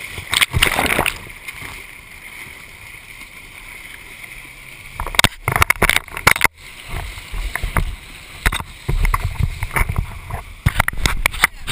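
Water sloshing and splashing around a helmet camera's waterproof housing, with irregular knocks and bumps against the case and a louder flurry of splashes about five to six and a half seconds in.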